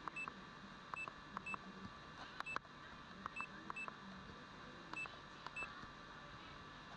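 Faint short electronic beeps, about eight of them at uneven intervals, each with a sharp click, as of buttons being pressed on a device that confirms each press with a beep.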